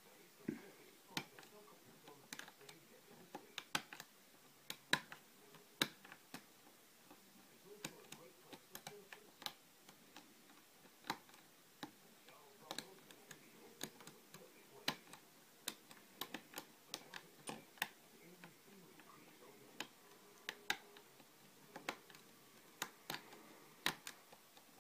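Lock picks working the pins of a 5-pin Bird brass rim cylinder: small, sharp metallic clicks and ticks at an irregular pace as the pins are picked.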